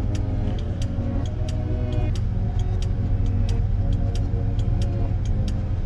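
Pickup truck cab with the engine running as a steady low rumble, and the turn-signal relay clicking steadily about twice a second. Faint music plays underneath.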